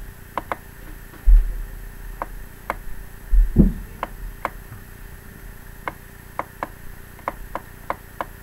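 Computer mouse clicking: short sharp clicks at an uneven pace, some in quick pairs, while colours are picked and shapes drawn in MS Paint. Two low thumps, about a second in and again about three and a half seconds in, stand out as the loudest sounds.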